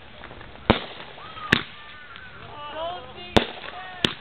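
Fireworks going off: four sharp bangs at uneven intervals, with voices calling out between them.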